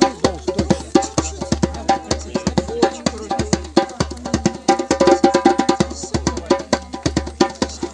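Music driven by fast drumming: rapid drum strikes, several a second, with ringing pitched tones between them.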